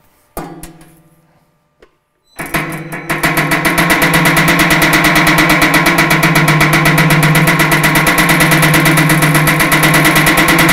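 A steel sheet rattles briefly as it is lifted into place, then about two and a half seconds in an electric power hammer starts pounding rapidly and steadily on it through a linear stretching die, the sheet ringing with every blow. The hammering pre-stretches the panel along the line where a bead will be rolled in.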